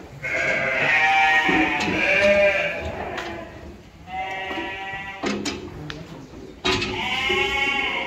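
Goats bleating: three long, wavering calls, the first the longest and loudest, another about four seconds in, and a third near the end.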